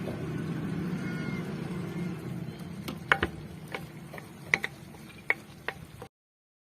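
A low steady hum, then a few sharp light clicks and knocks as olives are set onto a tagine. The sound cuts off just before the end.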